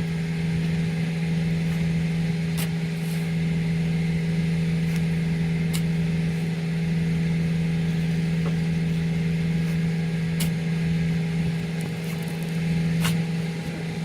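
An engine running steadily at constant speed, with a hum that never changes pitch, and a few sharp clicks scattered through it.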